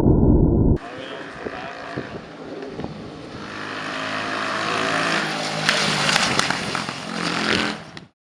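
Rieju Marathon 125 motorcycle's single-cylinder engine through a Scalvini racing exhaust. A loud, muffled rumble cuts off abruptly under a second in, then the engine runs, its note swelling for a couple of seconds, with sharp exhaust pops and crackles near the end.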